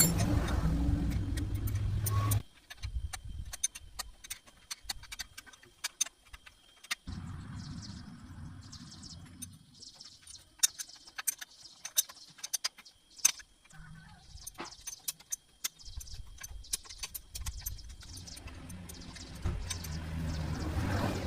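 A motor runs in three spells, a few seconds each, with many sharp metallic clicks and clinks throughout.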